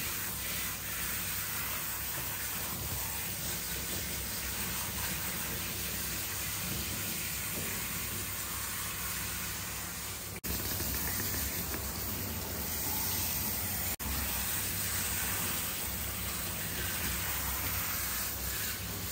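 Handheld shower sprayer running steadily, water hissing and spattering onto a wet dog's coat and the floor of a stainless steel grooming bathtub, with two brief breaks about ten and fourteen seconds in.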